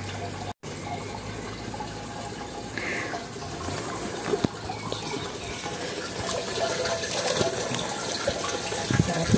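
Steady sound of running, splashing water. It cuts out for an instant about half a second in.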